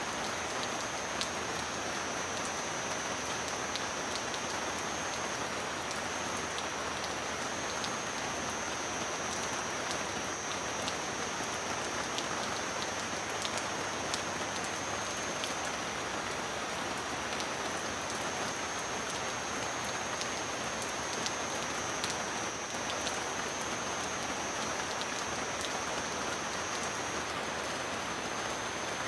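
Heavy rain falling steadily, an even hiss with scattered drop ticks. A thin, steady high whine sits behind it.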